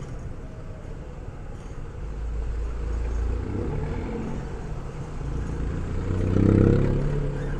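A Suzuki Every Wagon kei van driving on a city street: steady low engine and road noise. A pitched engine sound swells and rises, peaking loudest about six and a half seconds in before easing off.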